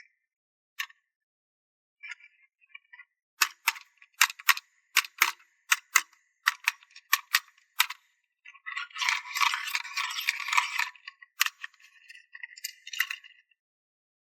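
Slime being pressed and mixed by hand, giving a run of about a dozen sharp pops and clicks. About halfway through, it breaks into a couple of seconds of dense crackling, followed by a few more scattered clicks.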